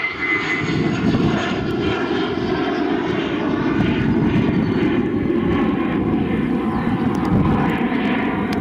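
Airbus A320's twin IAE V2500 turbofan engines at takeoff thrust as the airliner climbs out. A loud, steady jet noise, with a high fan whine that fades about half a second in.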